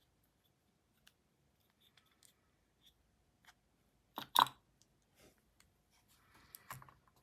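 Small metal fidget-toy parts (detent balls, springs and cap) clicking and clacking as they are handled during reassembly, with scattered light ticks. About four seconds in there is a louder pair of clacks, and a few more clicks come near the end.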